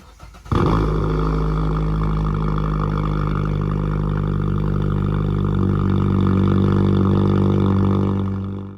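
NOAA Weather Radio 1050 Hz warning alarm tone of a weekly test, held for about eight seconds and then cutting off. It comes through rough and buzzy off the air, with a strong low hum beneath the tone.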